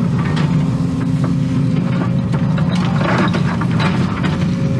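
Excavator diesel engine and hydraulics running steadily, heard from inside the cab. Scattered clicks and scrapes come through, most of them about three seconds in, as the level bucket sweeps across loose dirt and stones.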